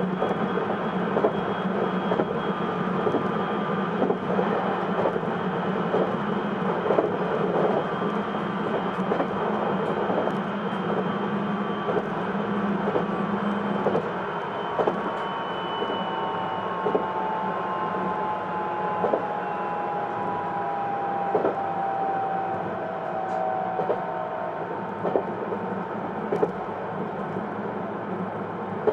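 Hokuetsu Express HK100 electric railcar running, heard from inside the car: a steady rumble of wheels on rail with clacks every second or two. From about halfway, the whine of its Mitsubishi IGBT-VVVF inverter and MT68 traction motors falls slowly in pitch as the train slows.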